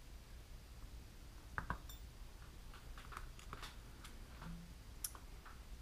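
A few faint clicks and taps of tweezers and small helicopter parts being handled and set down on a work mat, the clearest about one and a half seconds in and near the end, over a low steady hum.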